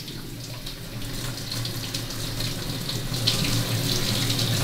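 Water running from a quarter-turn kitchen mixer tap into a stainless steel sink, the flow building and getting louder and splashier from about three seconds in.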